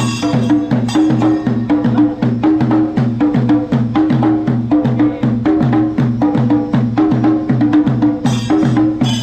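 Singari melam ensemble of Kerala chenda drums beaten with sticks, many drummers together in a fast, steady rolling rhythm. A brighter, hissing clash is layered in near the start and again near the end.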